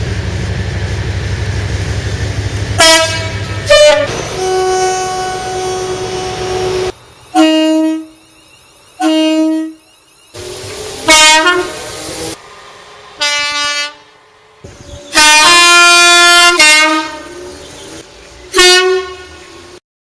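Train horns sounding in a run of separate blasts, alternating between a higher and a lower note, most of them short and one held longer about fifteen seconds in. A locomotive's engine rumbles underneath for the first seven seconds.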